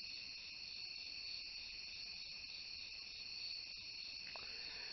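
Crickets chirping steadily, with a few faint clicks.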